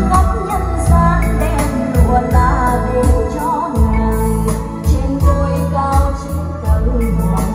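Music with a singing voice and a heavy, regular bass beat, played loud through a Wonderfell speaker system with its subwoofer.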